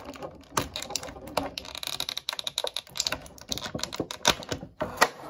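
Quick, irregular sharp clicks and taps of small plastic parts being handled: a Mega Construx minifigure and its accessories.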